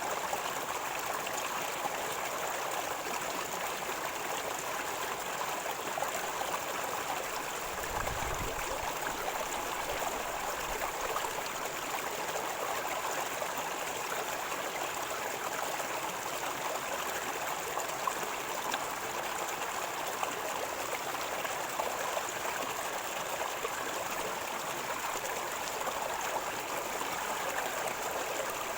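River water flowing and gurgling in a steady rush, with a brief low rumble about eight seconds in.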